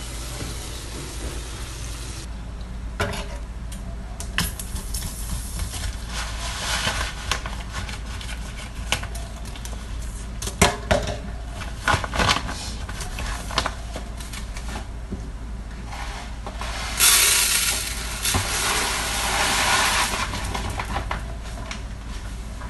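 Kitchen handling sounds: scattered clicks and knocks of utensils and containers, with a plastic bag rustling loudly for a few seconds in the second half, over a steady low hum.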